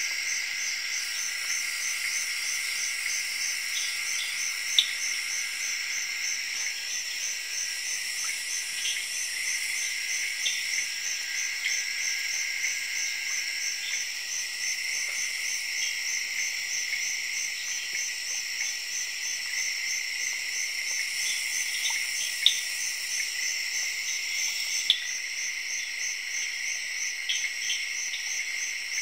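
Night chorus of insects in a tropical forest: steady high trilling at two pitches, the higher one pulsing evenly, with scattered short chirps. Three sharp clicks stand out, near 5 s, 22 s and 25 s.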